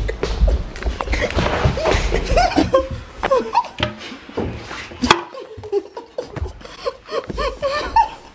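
Laughter in repeated bouts, with a sharp click about five seconds in.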